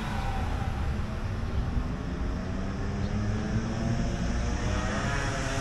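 Engine drone over a steady low rumble, its pitch slowly rising and growing louder in the second half.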